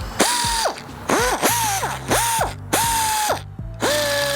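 Mastercraft pneumatic ratchet running free in about six short trigger pulls. Each pull gives a whine that spins up quickly, holds and winds down. One pull starts slower and then jumps up in speed as the lever is pressed harder.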